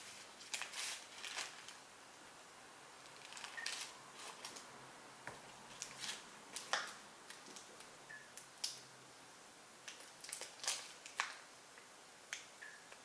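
Subway sandwich paper wrapper crinkling and rustling as the sandwich is unwrapped and handled. The sound comes as many short, sharp crackles scattered irregularly throughout.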